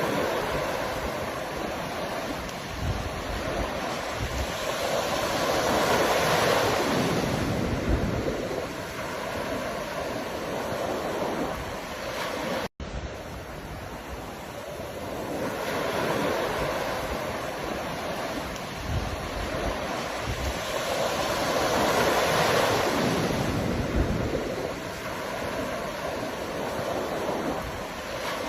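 Ocean waves breaking and washing in, the surf swelling and fading in slow surges about every 16 seconds. There is a split-second cut to silence about halfway through.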